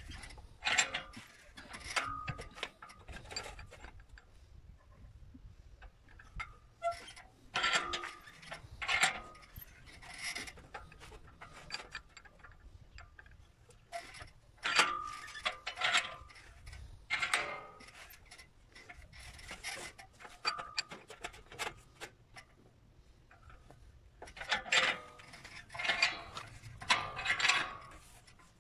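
Sheet-metal strip being bent by hand in a steel bench vise: irregular bouts of metallic clanking, rattling and scraping as the strip is worked over and the vise handle is turned, with brief ringing from the metal, separated by short quiet pauses.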